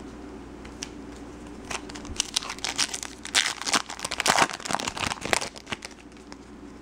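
Foil trading-card pack wrapper crinkling and tearing as a pack is opened. Dense crackling from about two seconds in until shortly before the end.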